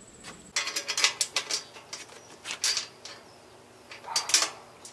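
Thin, flimsy sheet-metal body of a Char-Griller Smokin' Champ smoker clanking and rattling as it is handled and adjusted on its cart: clusters of sharp metallic clicks about half a second in, again around two and a half seconds, and once more near the end.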